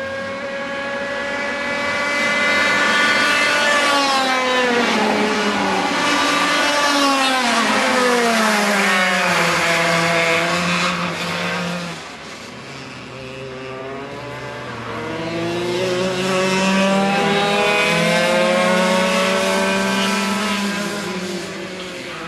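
Several 125cc Parilla Leopard two-stroke kart engines running on track, their pitch rising and falling as the karts accelerate and slow past. The sound is loudest twice, through the first half and again near the end, with a dip in between.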